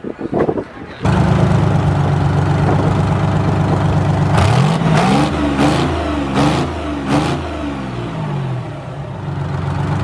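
A rusty rat-rod truck's engine idling loudly, then revved in about four quick blips, each rising and falling in pitch, before it drops back to idle.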